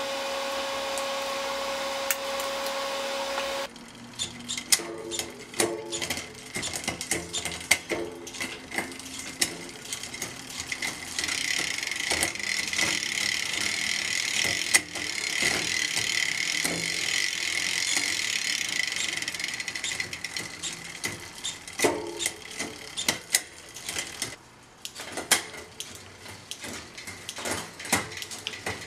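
Mountain bike drivetrain turning in a repair stand: the SRAM Eagle AXS chain runs over the rear cassette with a steady hiss and a high whir for several seconds in the middle, among scattered mechanical clicks and ticks. Music plays for the first few seconds.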